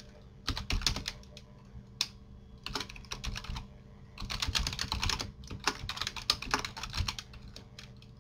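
Typing on a computer keyboard: quick runs of keystrokes separated by short pauses, as a line of text is entered word by word.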